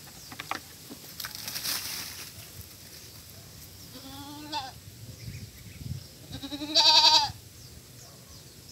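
Goat bleating twice: a short bleat about four seconds in, then a longer, louder, wavering bleat near the end.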